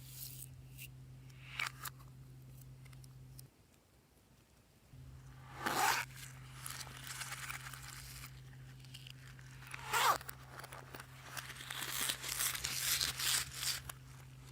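Hands handling slime-making materials, giving several bursts of tearing and crinkling. The densest run comes in the last few seconds, over a steady low hum.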